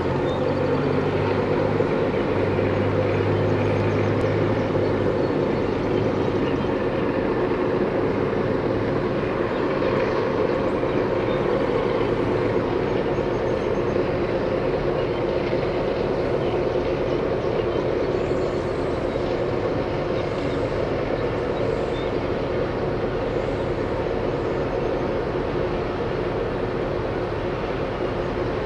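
Diesel locomotive engines running, a steady drone with a low hum that drops away about seven seconds in.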